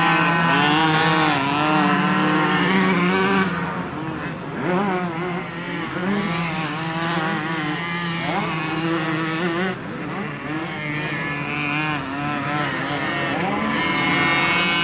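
Several 50cc two-stroke motocross bikes revving hard around the dirt track, their pitch rising and falling as the riders work the throttle. It is loudest at the start and again near the end as bikes pass close by, and dips in between as they move off.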